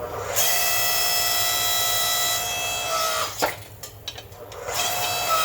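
Abrasive power tool grinding metal in two passes: a steady high whine over a rough hiss for about three seconds, cut off with a click, then a second pass starting about a second before the end.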